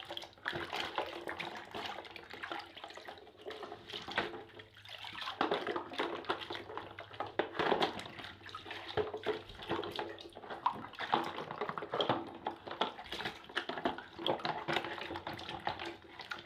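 Water sloshing and splashing as a muddy toy bus is washed in it, with small irregular knocks of the toy against the container.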